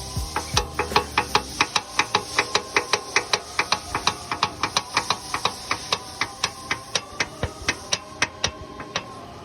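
Rapid, regular knocking from the VW Jetta's front suspension or steering as it is worked, about five knocks a second, spacing out near the end. It is the clunk being chased as a sign of a worn suspension part.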